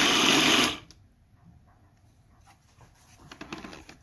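Electric food processor motor running, grinding a dry fried-anchovy and coconut chutney, then cut off suddenly under a second in. After that come faint clicks and rubbing of the plastic bowl and lid being handled.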